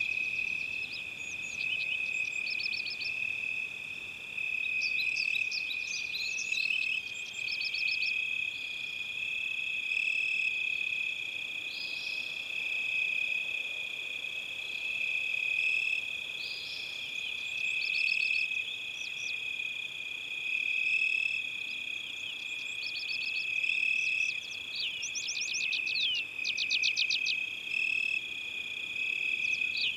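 Natural forest ambience: a steady high-pitched chorus of small animals, with birds chirping and trilling over it in short bursts, busiest near the end.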